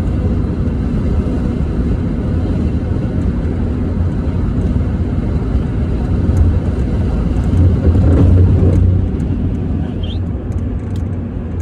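Steady low rumble of a car driving at highway speed, heard inside the cabin: tyre and engine noise, swelling louder for about a second near eight seconds in.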